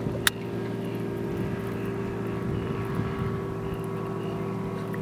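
Boat motor running at a steady pace, with one sharp click shortly after the start.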